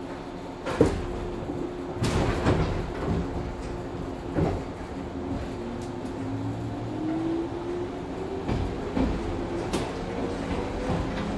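JR West Series 103 electric train pulling away, heard from inside the passenger car: a few sharp clanks and knocks, the loudest about a second in, over a steady running rumble. Over the second half the DC traction motors give a whine that rises steadily in pitch as the train gathers speed.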